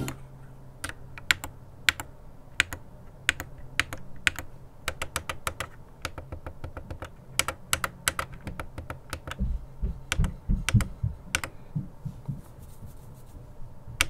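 Buttons on a Logitech G613 wireless mechanical keyboard pressed one at a time, each a sharp click, about one or two a second at irregular spacing. A few dull low thumps come about ten seconds in.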